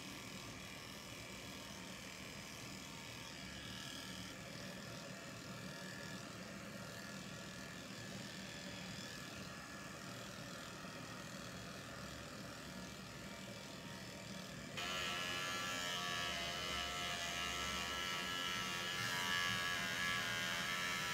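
Electric dog-grooming clippers running with a steady buzz as they are worked through a Bichon Frise's curly coat. The buzz jumps abruptly louder and brighter about two-thirds of the way in.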